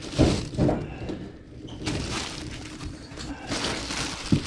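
Rustling and shuffling of items being handled and moved around, with a short knock near the end.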